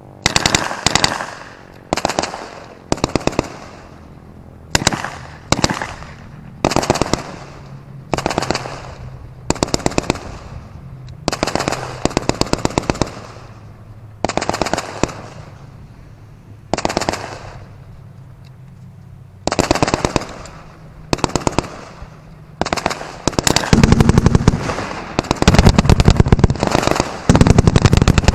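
Fireworks going off in short strings of rapid sharp cracks, about one string a second. In the last few seconds the strings run together, louder and almost without pause.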